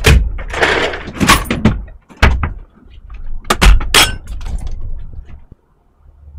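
A run of loud knocks, bangs and clatter, several sharp hits close together in the first four seconds, then quieter and briefly nearly silent.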